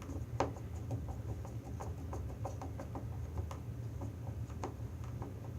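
Small screwdriver turning the terminal screw on a male DC power connector to clamp a wire: a run of light, irregular clicks and scrapes, over a steady low hum.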